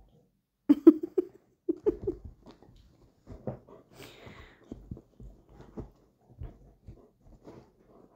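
A dachshund puppy and a rottweiler cross play fighting: short growls and snuffling breaths in quick bursts, loudest about a second in and again around two seconds, then quieter and choppier.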